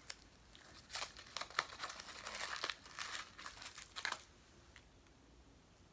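A candy wrapper crinkling and crackling as it is unwrapped by hand. The run of crackles starts about a second in and stops after about four seconds.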